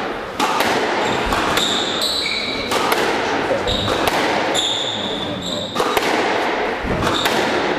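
Squash rally: the ball cracks off rackets and walls about once a second, with shoes squeaking sharply on the wooden court floor between strikes.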